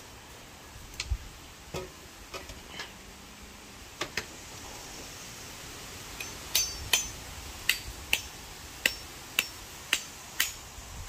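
A series of sharp knocks and clinks from metal cookware and utensils. A few come scattered at first, then a fairly regular run of about two a second starts about halfway through, some ringing briefly.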